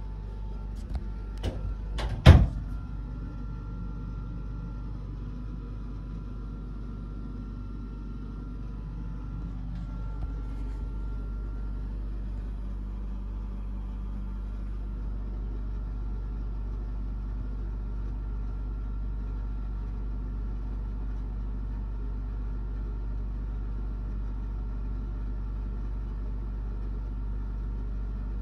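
Steady low hum of a stereo system while a JVC KD-V6 cassette deck runs a tape, with no music heard. A few sharp clicks about one to two seconds in, the last the loudest.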